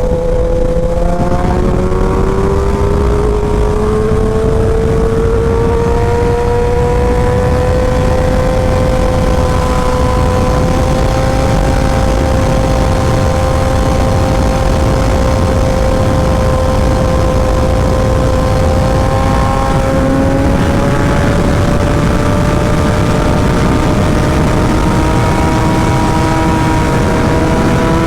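2017 Kawasaki Ninja ZX-10R's inline-four engine running through a short SC Project exhaust under steady throttle, with wind rush. Its note rises over the first few seconds, holds steady for a long stretch, and climbs a little again near the end.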